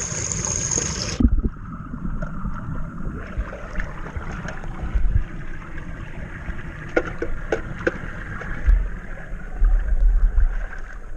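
Water rushing and gurgling through a roof drain as the blockage is cleared, with low rumbling thumps. A sharp high hiss cuts off about a second in.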